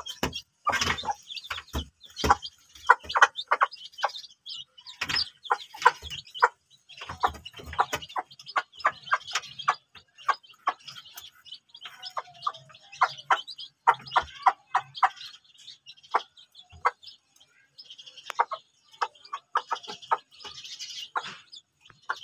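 Aseel hens clucking softly over their newly hatched chicks while the chicks chirp almost without pause, in many short notes through the whole stretch.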